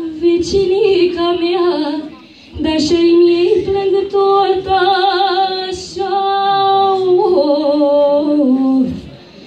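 A young girl singing a Romanian folk ballad solo, with no accompaniment. She holds long notes with vibrato, pauses for breath about two seconds in, and ends on a phrase that steps down in pitch.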